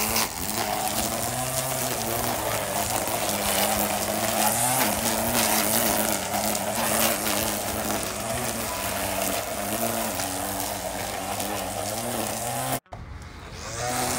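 Cordless electric string trimmer running steadily, its spinning line cutting grass and weeds at ground level. The sound drops out suddenly for a moment near the end.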